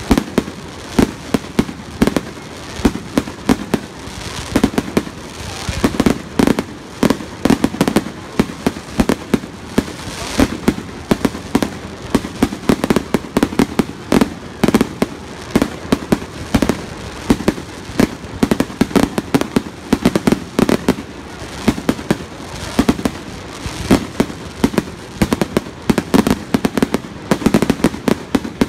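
Finale barrage of aerial firework shells launching and bursting in rapid succession: a continuous string of sharp bangs and pops, several a second, with no pause.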